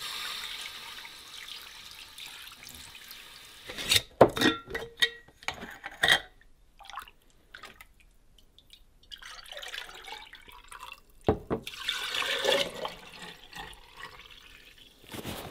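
Water poured from a metal bowl onto sugar in a pot, a steady splashing pour for about four seconds. Then come several sharp knocks of glass jars and bowls being handled. Near the end, 1:1 sugar syrup is poured from a bowl into glass mason jars.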